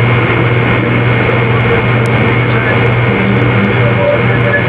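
Steady scratchy static with a low hum underneath, unchanging throughout: the noise of a recording that was made with nothing meant to be sounding.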